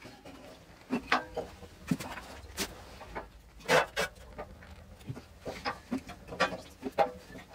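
Irregular knocks and clicks of firewood being laid in a newly lit steel sauna stove and its cast-iron firebox door being swung shut, a few of the knocks with a short metallic ring.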